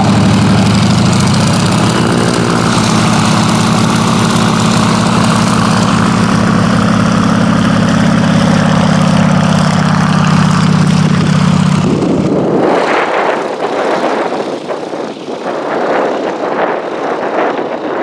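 PZL-104 Wilga tow plane's propeller engine running steadily at close range, its pitch lifting briefly about two seconds in. About twelve seconds in the engine sound falls away and gusty wind buffeting the microphone takes over.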